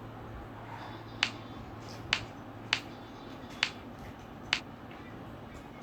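Five sharp, separate clicks, roughly one a second, over a faint steady background hiss.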